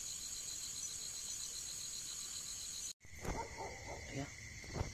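Insects trilling, a steady faint high pulsing chirp. The sound cuts out briefly about three seconds in and returns with a different steady insect tone and a few faint short calls or scuffs.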